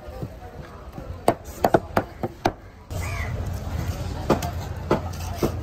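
Heavy knife chopping through tuna flesh and striking a wooden cutting board in a series of sharp, irregular knocks. A bird calls once about three seconds in.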